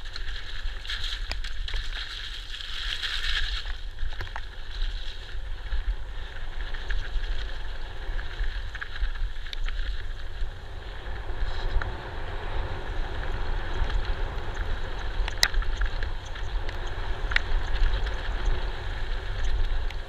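Mountain bike descending a dirt trail at speed, heard on a bike-mounted camera: wind buffeting on the microphone over the rolling of the tyres and the rattle of the bike. A high buzz runs for the first few seconds, and two sharp knocks come in the last third, as the bike hits roots or rocks.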